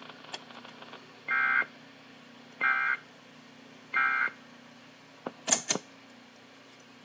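Emergency Alert System end-of-message (EOM) data bursts: three short digital two-tone squawks about a second apart that close the relayed required monthly test. A couple of sharp clicks follow about five and a half seconds in.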